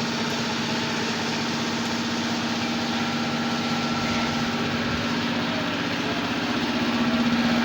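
Workshop machinery running steadily: a continuous mechanical hum with a steady low tone, growing a little louder near the end.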